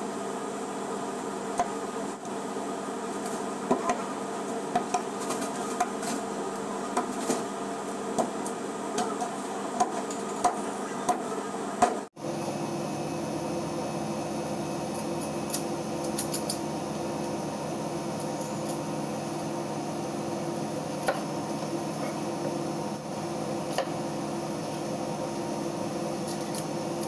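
Large fish knife chopping through fish on a cutting board: sharp knocks every second or so over a steady background hum. About twelve seconds in the sound changes abruptly, and after that mostly the hum remains, with only a few faint taps of the knife.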